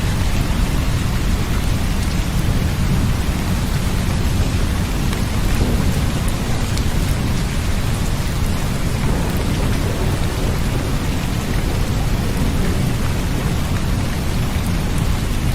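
Steady heavy rain with a deep, continuous low rumble underneath, as in a thunderstorm recording.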